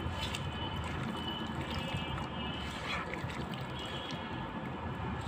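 A hand kneading and squeezing raw goat meat with sliced onions, green chilies, ginger-garlic paste and soybean oil in a pan, making wet mixing sounds.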